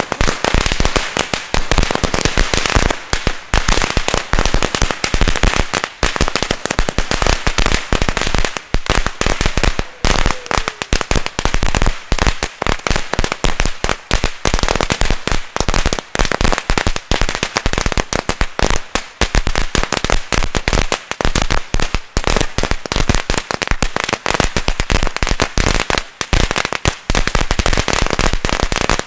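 A long firecracker chain going off: a dense, unbroken string of sharp bangs, many a second.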